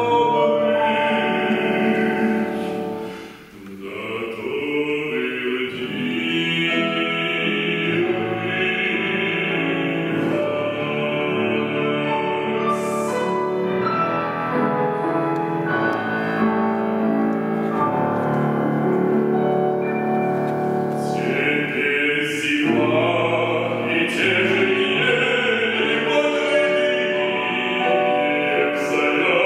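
Operatic bass voice singing a Russian romance with grand piano accompaniment, with a short break in the sound about three seconds in.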